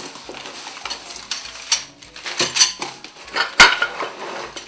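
Plastic wrap and bubble wrap rustling, with irregular clinks and knocks of metal parts (aluminium plates and extrusions of a mini CNC kit) being handled and unpacked from a cardboard box; the loudest knock comes about three and a half seconds in.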